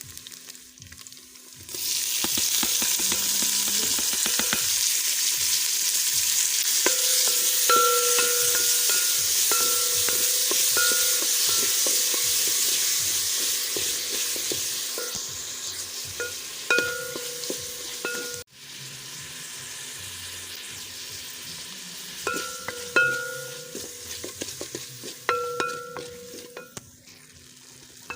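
Food frying in hot oil in a pan. A loud sizzle starts abruptly about two seconds in, then slowly dies down, while a utensil stirs and scrapes with scattered clicks and knocks against the pot.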